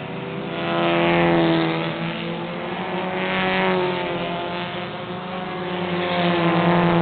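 Four-cylinder compact race cars racing on a short oval, several engines at high revs at once. The sound swells three times, about a second in, mid-way and near the end, as groups of cars go past, with the engine pitch dropping after each pass.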